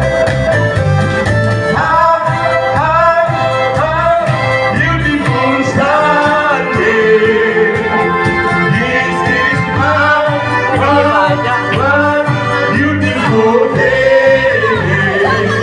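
Live band playing an upbeat song through a PA speaker: a singer on microphone over acoustic guitar and a steady bass beat.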